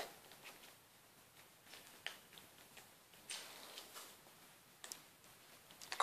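Near silence: room tone, with a few faint short clicks and rustles.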